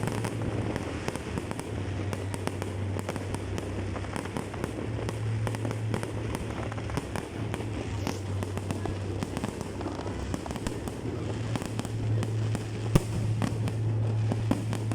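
Fireworks display: a dense, continuous run of crackling pops and bangs, with one sharper crack near the end, over a steady low hum.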